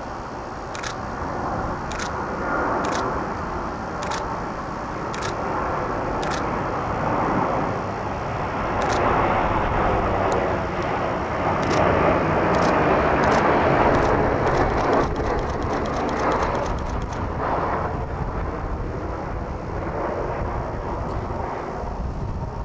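A Southwest Airlines Boeing 737 jet airliner passes overhead: its engine noise swells to a peak a little past the middle and then fades. Camera shutter clicks sound about once a second at first, then come in a quick burst as the plane goes over.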